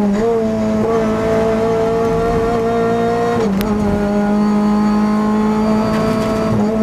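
Renault Clio Cup race car's engine heard from inside the cockpit, holding a steady pitch through a corner. About three and a half seconds in there is a short click and the pitch drops a little, then holds steady again.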